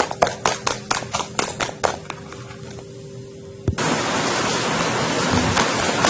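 A fork clattering rapidly against a bowl as eggs and sugar are beaten by hand, about four strikes a second, stopping after about two seconds. Near the middle a steady, rain-like hiss sets in abruptly and continues.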